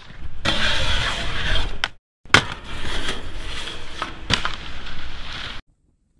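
Skis scraping and sliding over snow in two stretches, with a short break about two seconds in and a few sharp knocks, one loud just after the break; the noise cuts off suddenly near the end.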